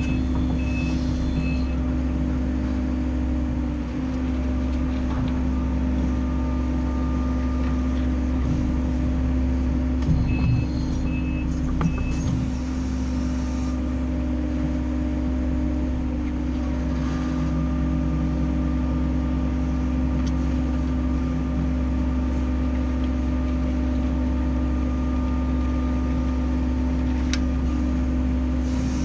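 Case CX130D long reach excavator running steadily, heard from inside the cab: a constant diesel hum and low rumble with a higher hydraulic whine coming and going as the boom and bucket move. A few short electronic beeps sound right at the start and again about ten seconds in.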